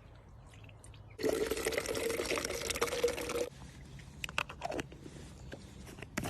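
Liquid pouring or running in a stream for about two seconds, with a steady tone like a filling container, stopping abruptly; a few small clicks follow.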